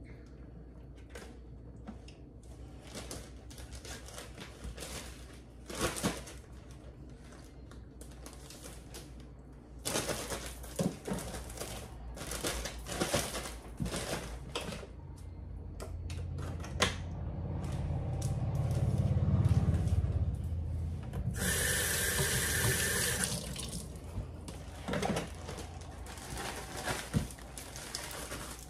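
Kitchen handling clicks and knocks, then water from a sink tap, with a low rumble that swells past the middle and a short burst of hiss that starts and stops abruptly.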